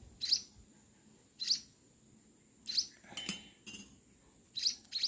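Munia (emprit/pipit) chick giving short high chirps, four of them about a second and a quarter apart. Around three seconds in, a short run of clinks from a spoon stirring porridge in a small dish.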